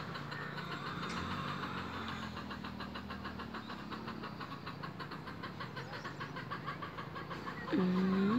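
A fast, even pulsing runs in the background, with a low steady hum for a few seconds. Near the end a rooster starts to crow, and that is the loudest sound.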